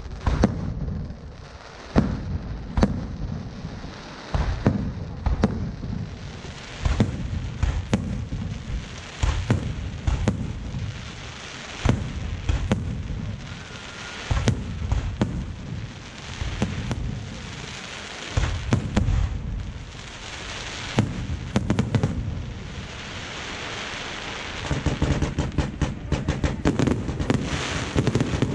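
Aerial fireworks display: shells bursting one after another in sharp bangs and deep booms, with dense rapid crackling building near the end.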